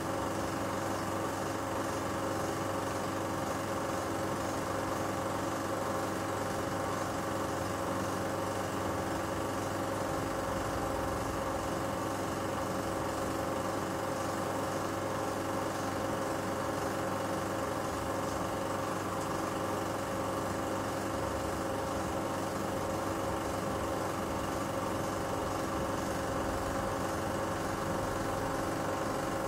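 16 mm film projector running steadily, a constant mechanical hum made of several even tones with no change in level.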